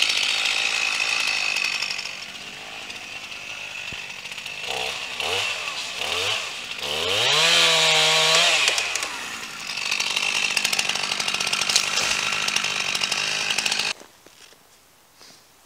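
Gas chainsaw cutting into a tree trunk at full throttle. It eases off for a few seconds, revs up and back down around the middle, runs at full throttle again, then stops abruptly near the end.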